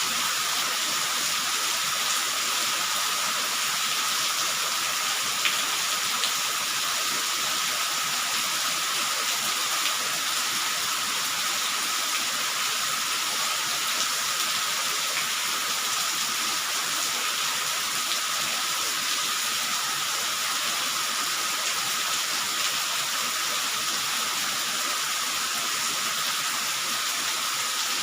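Steady rain falling: a continuous even hiss, with a few sharper drip or tap sounds around five to ten seconds in.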